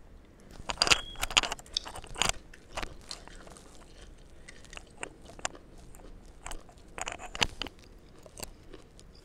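A person chewing and biting food close to the microphone: crunchy, crackly mouth sounds, a dense cluster of loud ones about a second in, then softer scattered clicks.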